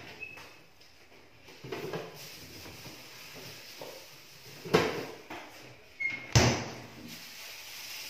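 Several separate knocks and thumps, like cupboard doors or a drawer being handled. The two loudest come about five and six and a half seconds in.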